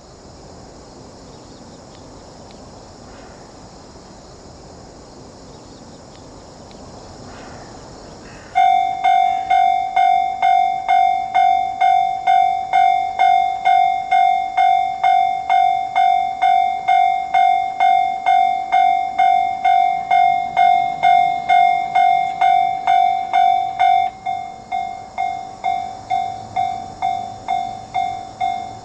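Japanese railroad crossing warning alarm, starting about a third of the way in after steady background noise. It rings a loud, evenly repeated ding of about two and a half strokes a second. Near the end the dings become more separated, with quieter gaps between them.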